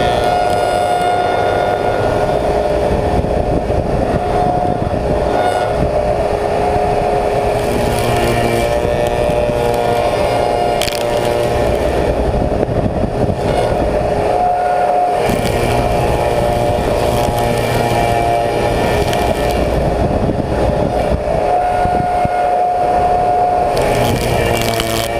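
Slab surfacing machine running steadily, its cutter head with six replaceable insert knives surfacing a willow slab. The machine's tone shifts slightly now and then.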